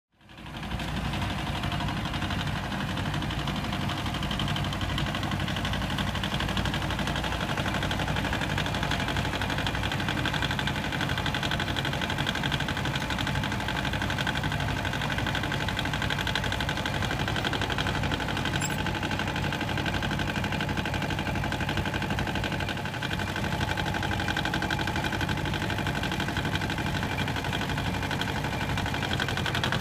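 Yanmar YM1300 compact tractor's diesel engine running steadily, fading in within the first second.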